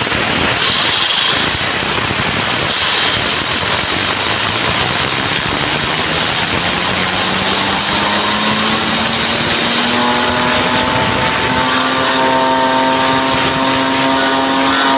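Compressed air hissing from an air-gun nozzle as it drives a machined steel fidget spinner on its ball bearing. From about halfway through, a hum from the spinning disc rises steadily in pitch as it speeds up.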